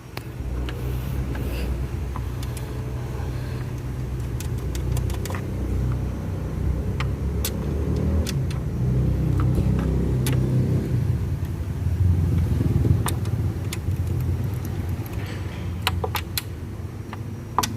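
Car engine running with a steady low rumble and scattered light clicks, its number-3 cylinder no longer misfiring now that the leaking fuel injector has been resealed and full power has returned.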